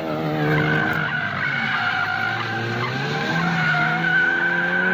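Ford Focus RS sliding sideways on pavement, its tires squealing in a steady high screech while the turbocharged four-cylinder engine revs up and down several times.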